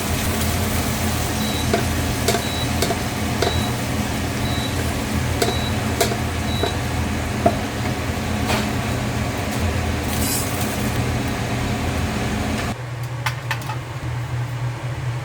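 Food sizzling as it fries in a pan over a steady low hum, with occasional clinks of utensils. The sizzle stops suddenly about thirteen seconds in, and the hum carries on.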